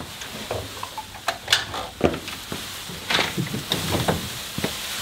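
Thin plastic rain poncho crinkling and rustling as it is handled, in irregular crackles with a few sharp clicks.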